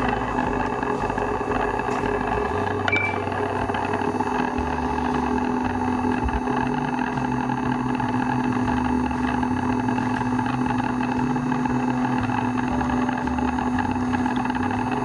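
Small electric fan motor of a handheld food smoking gun running steadily, pushing smoke through its hose into a glass cloche.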